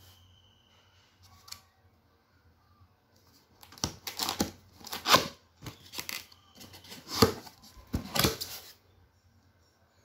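Cardboard box being opened: a run of rough tearing and scraping noises, several strokes over about five seconds, starting a few seconds in, as the lid and its tab are pulled free of the carton.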